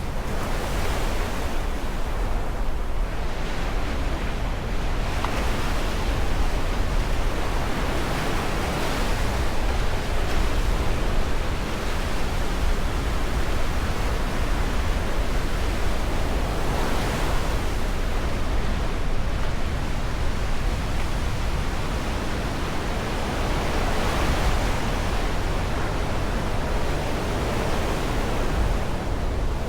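Black Sea waves breaking and washing on the shore, swelling every few seconds, with wind rumbling on the microphone.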